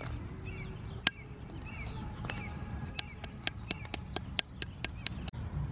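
Small deer antler billet striking the edge of an obsidian axe head, sharp clinking taps as flakes are knocked off. Two single strikes, then a quick run of about four or five taps a second from about halfway through.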